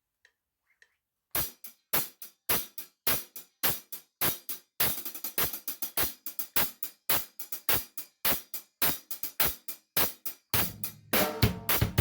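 Tama Super Star Classic drum kit with Zildjian cymbals being played. It starts about a second in with evenly spaced, bright cymbal-led strokes, and near the end the pattern thickens into a fuller groove with deep drum hits and ringing cymbals.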